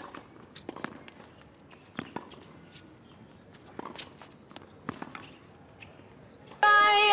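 Tennis rally on a hard court: sharp pops of racquets striking the ball, roughly one a second, with fainter ball bounces and footsteps in between. Loud music cuts in suddenly near the end.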